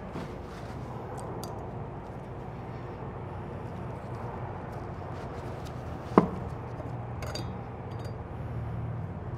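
Parts of a disassembled aircraft oil filter being handled by hand: one sharp click about six seconds in and a few faint ticks after it, over a steady low hum.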